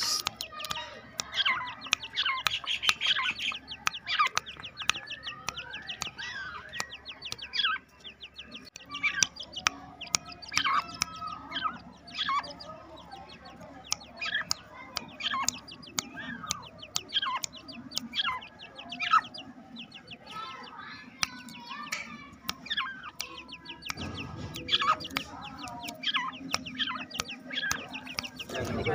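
Many caged birds calling at once: a continuous din of short, sharp chirps and clucking, fowl-like calls overlapping throughout.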